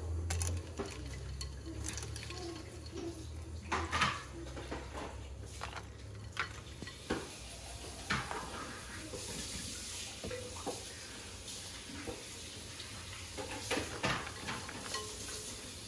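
A slotted spoon scraping and knocking in a stainless steel pot, scooping cooked purple dessert pieces out of their cooking water and tipping them into a glass bowl of ice water. The knocks and clinks are scattered and irregular, with light watery splashing.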